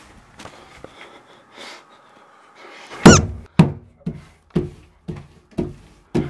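A gloved hand slapping a wet, foamy lump against a wall again and again: seven thuds about two a second, starting about three seconds in, the first the loudest.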